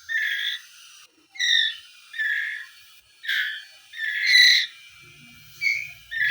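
White-rumped shama chick giving short, harsh calls over and over, about one a second, as a young bird does while learning to feed.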